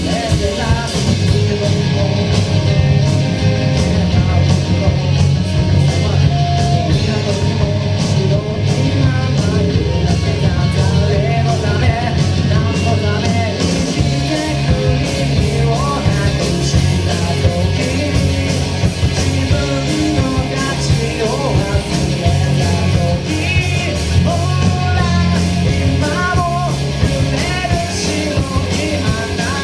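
Live rock band playing a song with a lead singer, loud and steady throughout.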